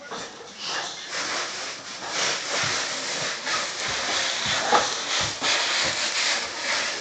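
Cardboard diaper box being pushed and scraped across a hardwood floor: a continuous rough scraping hiss broken by a few soft knocks.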